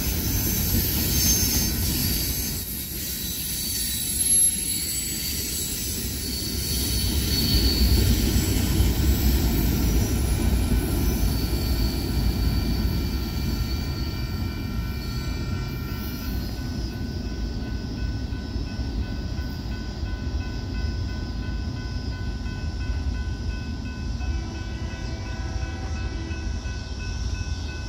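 Covered hopper cars of a Union Pacific manifest freight train rolling past on the rails with a steady low rumble and high wheel squeal. The squeal fades out over the second half as the end of the train moves away.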